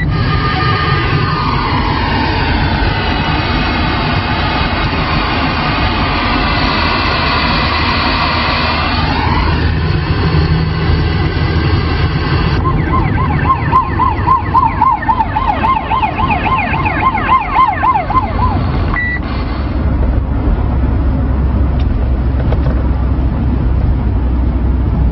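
Siren-like tones: a slow rising and falling wail for the first nine seconds or so, then a fast warble about halfway through that ends with a short beep. A steady low rumble of a running vehicle lies under it all.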